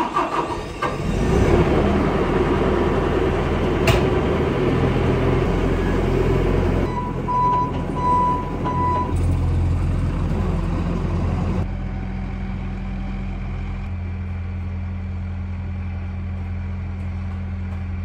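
Bobcat compact track loader's diesel engine running with a steady low hum, warming up and then moving off; around seven seconds in its backup alarm beeps several times, and from about twelve seconds the engine is heard more quietly and steadily.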